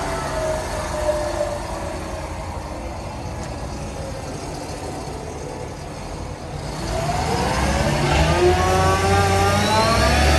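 6.4 Power Stroke diesel with its PTO-driven Vanair air compressor engaged, running at idle; about seven seconds in the engine speed climbs, a rising whine, and then holds steady at a higher, louder pitch as the compressor comes up to speed.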